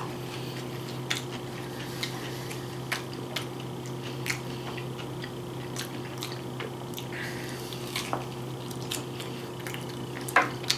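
Chewing and handling a crisp, grilled crunch wrap with Cheetos inside: scattered small crunches and clicks over a steady low hum, with a louder pair of clicks near the end.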